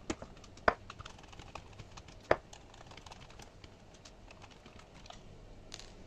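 Light clicking and ticking of a screwdriver backing small cross-head screws out of a plastic speedometer case, with a few sharper clicks in the first couple of seconds.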